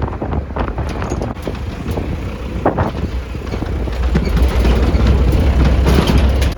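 Moving vehicle: road rumble and wind noise on the microphone, getting louder about four seconds in.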